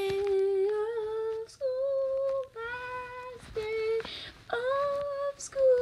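A single unaccompanied voice singing a wordless tune in about six held notes, with short breaks between them.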